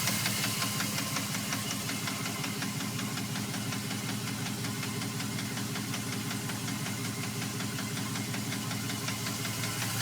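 2002 Dodge Ram's 4.7-litre V8 idling with a fast, even knocking from the engine, a noise that three mechanics take for a sign that the engine needs replacing.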